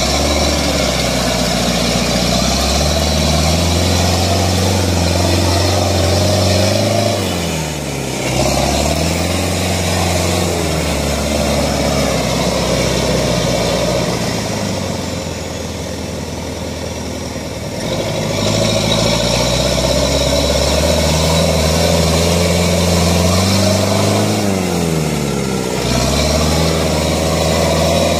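Off-road vehicle's engine running at held revs, dropping and picking up again a few times; about midway it eases to a lower, quieter run for several seconds before the revs climb again.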